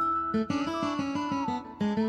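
Background music led by plucked guitar, with held notes and a quick run of picked notes.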